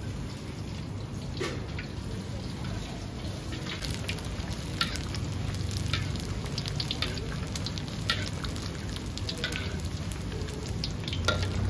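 A slab of crispy pork deep-frying in hot oil in a wok, sizzling steadily with scattered crackles and pops that grow busier about four seconds in, over a low steady rumble.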